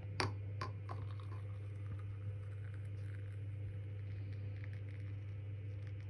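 Coffee being poured from a cezve into porcelain cups, with a few sharp clicks in the first second, over a steady low hum.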